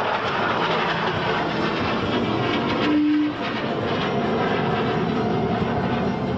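F-16 fighter jet flying overhead, a dense, steady rush of jet engine noise. A short steady tone sounds about halfway through.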